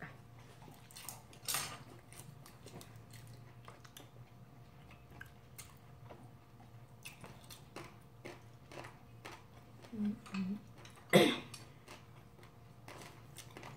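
Quiet eating at the table: chopsticks clicking against bowls and the pan, with chewing, as scattered small ticks and taps. One sharp clink about eleven seconds in is the loudest sound.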